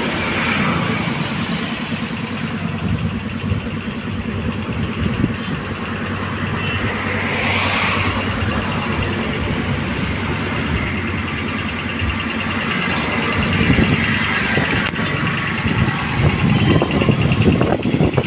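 Heavy diesel truck engine running steadily, with a brief hiss about seven and a half seconds in; the sound gets rougher and louder in the last couple of seconds.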